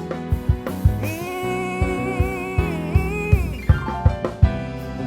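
Live gospel song with its band: a drum kit keeps a steady beat under a long held note, in the gap between sung lines.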